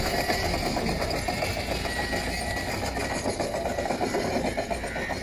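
Handheld poker-type concrete vibrator running steadily with a fast, even rattle, its rod worked down into fresh concrete to settle it behind the wall blocks.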